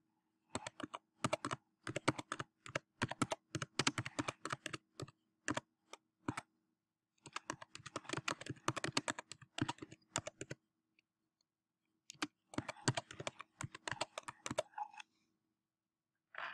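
Typing on a computer keyboard: three runs of rapid key clicks with short pauses between them.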